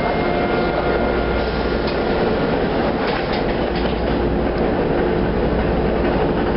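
Interior of a TTC H6 subway car: the doors slide shut, with a few sharp knocks about three seconds in, over the car's steady hum.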